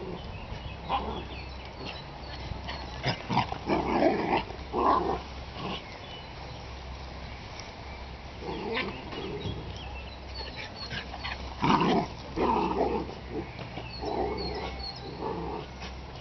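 Tibetan terriers play-fighting, with short growls and barks that come in scattered bursts.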